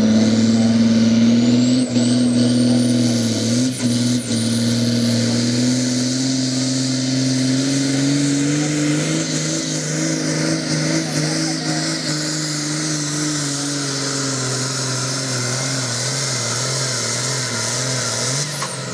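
A tractor-pulling competition vehicle's engine running hard and continuously. Its pitch dips twice briefly early on and sags gradually near the end. A thin high whine climbs in pitch over the first couple of seconds and then holds above the engine.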